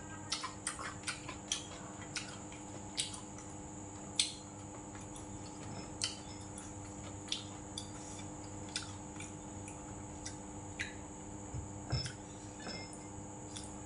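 Close-up eating sounds: chewing with irregular mouth clicks and smacks, and light taps of chopsticks and a spoon against bowls. The clicks come several a second at first and are sparser later. A steady faint electrical hum runs underneath.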